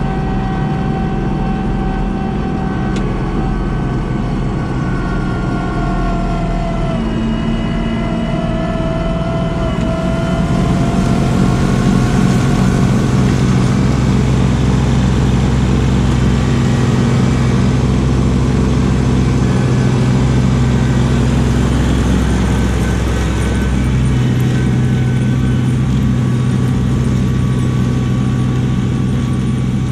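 Kubota LX2610 compact tractor's three-cylinder diesel running steadily with the front-mounted LX2980 snowblower working. A continuous loud drone carries whining tones, one of which dips in pitch about seven seconds in. It grows louder about ten seconds in.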